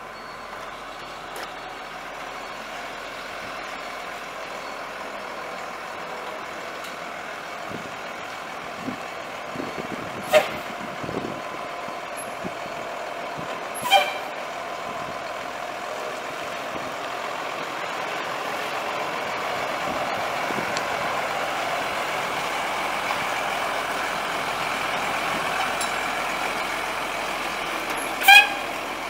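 A 1993 Ford F800 box truck's 7.8-litre inline-six diesel engine running steadily and slowly growing louder. Three brief, sharp pitched chirps come about 10, 14 and 28 seconds in.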